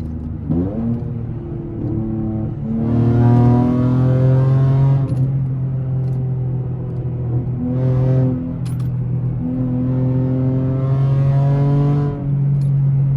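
V6 car engine and exhaust pulling under acceleration. The pitch climbs, then drops back at each gear change, several times over.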